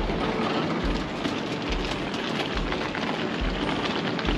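Wheels of a hard-shell carry-on suitcase rolling and rattling over a hard tiled floor, a dense continuous crackle, with a low thump a little more than once a second at walking pace.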